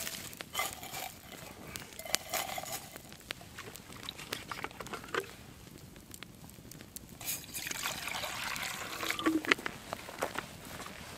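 Wood campfire crackling and popping, with a metal camp mug set down among the embers. About seven seconds in comes a rushing pour of liquid lasting a couple of seconds, the loudest part.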